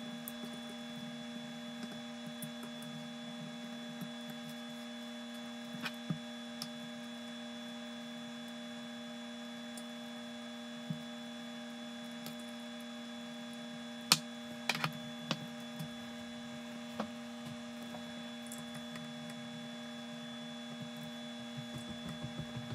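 A steady electrical hum throughout, with a few faint sharp clicks and taps of a small screwdriver and parts on a plastic RC car chassis, the loudest about two-thirds of the way through.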